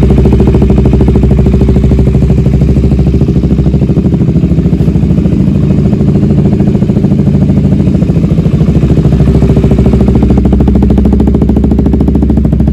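KTM Duke 200's single-cylinder engine idling steadily through an aftermarket Akrapovic-branded slip-on exhaust, loud and even.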